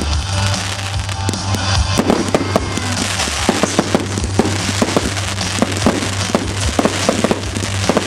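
Fireworks display going off: a rapid stream of sharp pops and crackles that grows denser about two seconds in.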